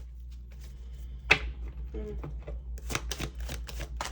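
Tarot cards being handled and shuffled: a run of sharp card snaps and clicks, the loudest about a second in and a cluster near the end, over a steady low hum.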